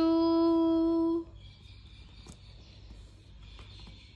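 A woman's voice holding a long, steady 'chooo', imitating a steam train's whistle, for just over a second. After it there is only a faint high steady hiss.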